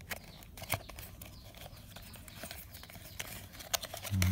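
Light taps, clicks and rustles of a cardboard battery box and the plastic battery pack being handled, with a few sharper clicks near the end.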